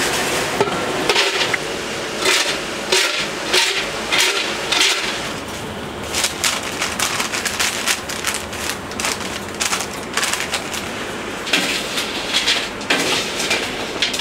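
Fries being scraped and scooped through a stainless-steel chip drainer, a run of metal scrapes and clinks. Then a paper chip cone crinkles as it is folded, and more fries are scooped from a metal bowl, over a steady low hum.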